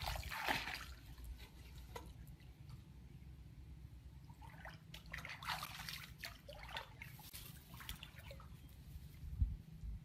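Water trickling and splashing in irregular bursts, over a low steady hum.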